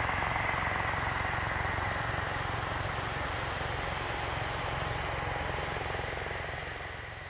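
Dassault Falcon 2000LX business jet taxiing, its twin turbofans at low thrust: a steady rumble with a thin high whine on top, fading near the end.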